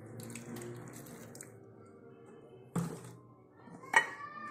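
Vinegar drizzled and dripping from a spoon onto raw chicken bones in a ceramic bowl, then a knock about three seconds in and a sharp ringing clink near the end.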